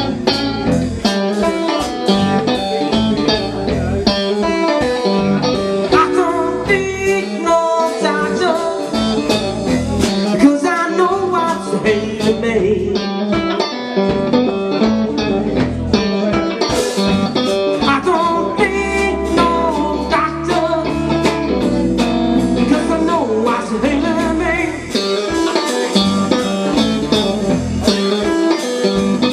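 Live blues music in E: lead guitar playing bending phrases over a band with bass and percussion.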